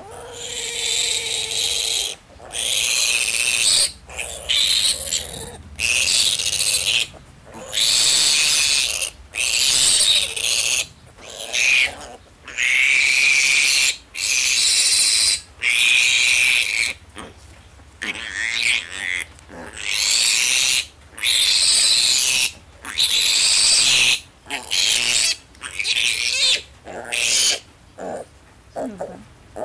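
Male piglet squealing loudly and repeatedly while restrained on its back and castrated, in distress: a long series of high-pitched screams, each about a second long, with short breaks for breath between them.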